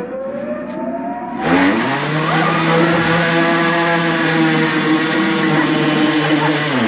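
A motor revs up about a second and a half in, holds a high, steady pitch for several seconds, then winds down at the end.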